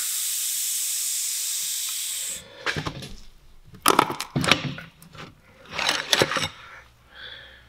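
Compressed air venting with a steady loud hiss from a pneumatic CV boot-expander tool as its pressure is released, cutting off sharply about two and a half seconds in. Then come a few sharp clacks and rubbing sounds as the rubber boot is worked off the tool's metal fingers onto the joint.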